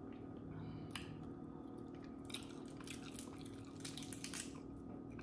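Faint crackles and wet clicks of a crab leg's shell being broken and the meat pulled out by hand, scattered and thickest in the second half, over a low steady hum.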